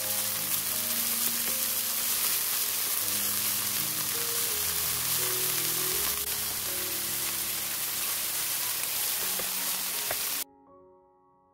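Starch-coated beef cubes sizzling as they fry in oil in a pan, a dense steady hiss, with background piano music. The sizzling cuts off suddenly near the end, leaving only the music.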